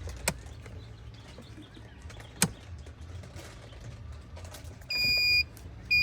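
Two sharp clicks, then, near the end, loud electronic beeps: a steady high tone in half-second beeps repeating about once a second.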